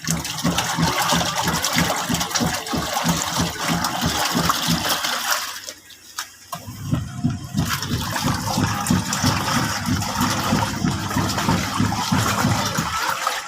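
Washing machine with water gushing and churning loudly. It cuts out for about a second halfway through, then starts again.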